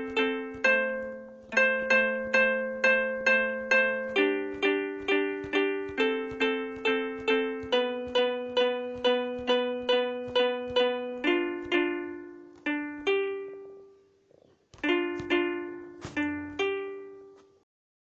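Harp-voiced melody played on a phone piano app: single plucked notes about two or three a second, each ringing and fading. A short pause comes about three-quarters of the way through, then a few last notes ring out and fade.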